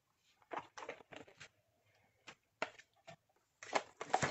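Clicks and knocks of small craft supplies being handled and set down while an ink refill bottle is fetched. The knocks come in several short groups, the loudest near the end.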